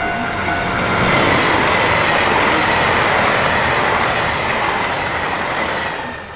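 JR Hokkaido KiHa 283 series diesel express train passing through a station at speed: a loud rush of wheels and engines that swells about a second in, holds steady, and fades near the end.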